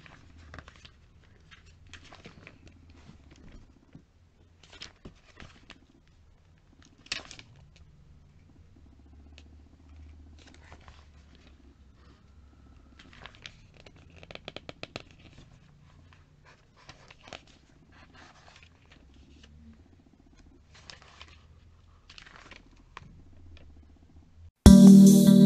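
Glossy catalogue pages being handled and turned by hand: scattered paper rustles and flicks, with a quick run of page flicks about halfway through. Music starts just before the end.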